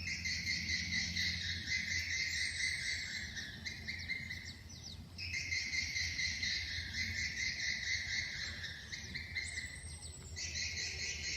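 Swiftlet calls: dense, high-pitched chirping and twittering in stretches about five seconds long, breaking off briefly and starting again twice.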